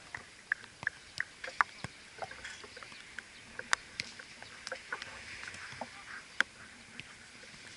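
Ball kicks and players' footfalls during a futsal match on artificial turf: an irregular scatter of sharp knocks, the loudest about one and a half, three and a half and six and a half seconds in.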